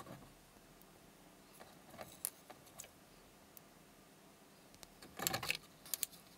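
Small metal balls rattling inside a homemade wine-cork popper lure as it is shaken: a few scattered clicks, then a short burst of rattling about five seconds in and a couple more clicks just after.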